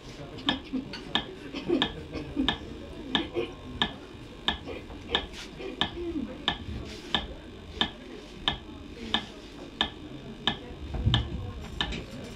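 Steady, even ticking, about three sharp ticks a second, like a metronome or clock, with faint murmuring voices under it and a low thud near the end.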